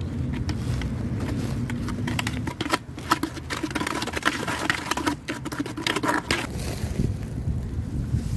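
Metal cake server scraping and knocking against the inside of a plastic bucket as it stirs thinned mortar mix: a rapid, irregular run of scrapes and clicks that thins out near the end.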